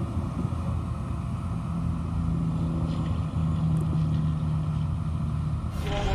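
Ford Mustang Bullitt's 5.0 V8 exhaust rumbling at a steady engine speed. Music cuts in abruptly near the end.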